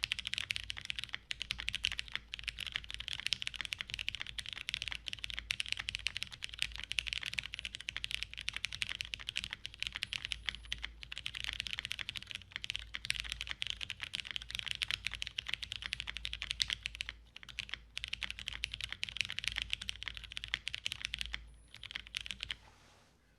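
Continuous fast typing on a TGR x Monokei 910 mechanical keyboard with lubed Cherry MX Brown switches on a polycarbonate plate and GMK keycaps: a dense run of key strokes with a couple of brief pauses, stopping shortly before the end.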